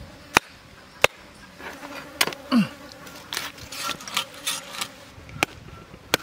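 Blade chopping raw stingray on a wooden log: about five sharp, separate strikes at uneven intervals.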